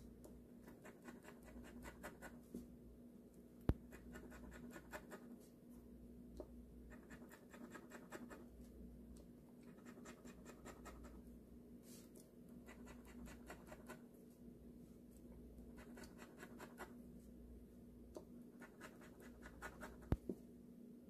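Scratch-off lottery ticket being scratched, faint, in repeated runs of quick rubbing strokes with short pauses between them. Two sharp clicks, about four seconds in and near the end, are the loudest sounds.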